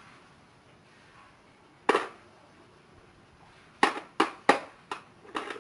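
Hand tools knocked against each other and a toolbox: one sharp knock about two seconds in, then five quick knocks close together near the end.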